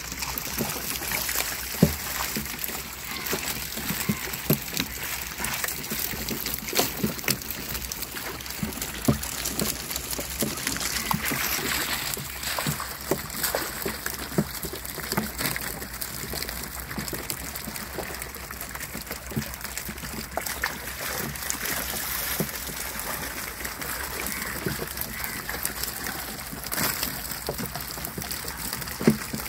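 Water splashing and trickling as a long-handled dip net scoops live fish from a bamboo-screen fish pen. Irregular short knocks and slaps run through it, the sharpest about two seconds in and near the end.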